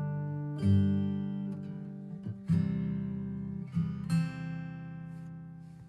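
Acoustic guitar music: slow strummed chords that ring out and die away, the sound fading out near the end.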